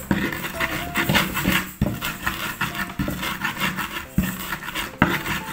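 Stone pestle grinding chili, salt and garlic in an earthenware mortar (ulekan and cobek): repeated rough scraping strokes with a knock about once a second.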